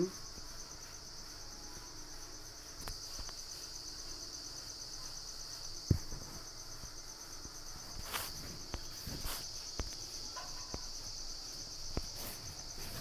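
Steady high-pitched chirring of insects in the background, with a few faint clicks, the sharpest about six seconds in.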